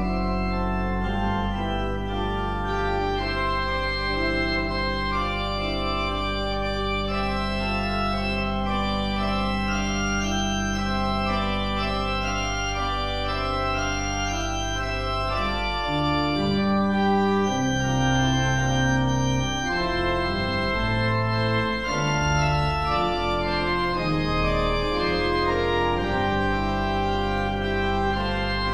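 Church organ playing full held chords over a sustained pedal bass. About halfway through, the pedal line moves through a run of shorter low notes, then settles back into long held notes.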